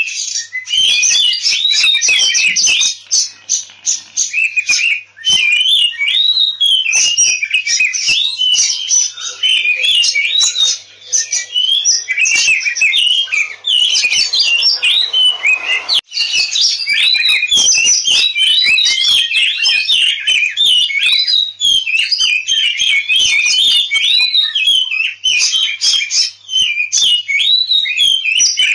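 Oriental magpie-robin (kacer) singing a fast, unbroken stream of varied whistles, slurs and chirps, with only a few brief breaks: the excited 'ngobra' fighting song, the aggressive territorial song that bird keepers play to provoke other magpie-robins into singing.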